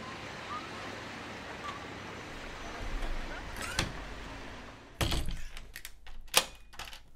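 Steady outdoor background noise, then from about five seconds in a run of sharp knocks and thumps, the loudest a little after six seconds.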